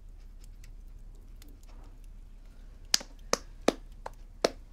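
One person clapping slowly, starting about three seconds in: five sharp claps, about two and a half a second, the fourth fainter.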